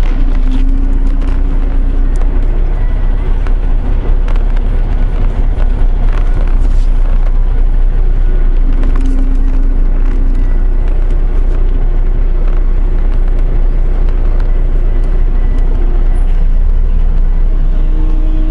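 MAN truck's diesel engine heard from inside the cab, running at low speed while the truck is manoeuvred, a steady low rumble with scattered clicks and rattles.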